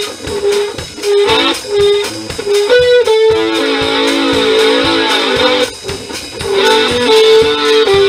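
Live guitar and drum kit playing together: the guitar strums and picks chords over a steady drum beat, with a short break about six seconds in.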